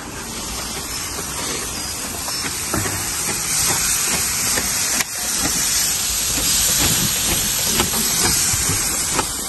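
Kebabs and steak sizzling on a charcoal barbecue grill: a steady hiss, with a brief dip about halfway through.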